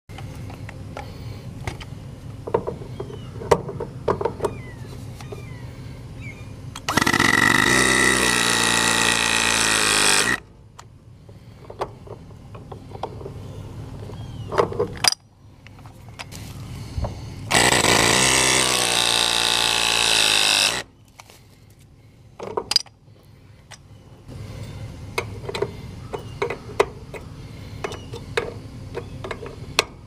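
Battery-powered hydraulic press tool crimping ZoomLock press fittings onto copper refrigerant line. It makes two press cycles of about three seconds each, the motor running under load with its pitch shifting, and between them come quieter clicks and taps as the tool is handled.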